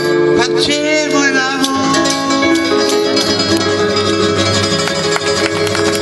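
Live acoustic band: acoustic guitar and keyboard playing the last bars of a song, settling into long held notes over the final seconds.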